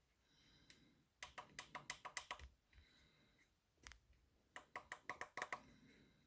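Quick runs of small plastic button clicks, about eight in a row and then six more near the end: the brightness button on a lamp pressed over and over, with the light already at maximum so it won't get brighter.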